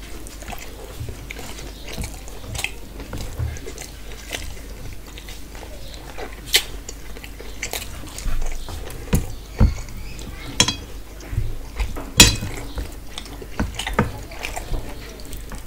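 A person eating rice and mutton curry by hand: wet chewing and lip smacks, with fingers mixing rice against a steel plate. It comes as irregular sharp clicks and smacks, the loudest about twelve seconds in.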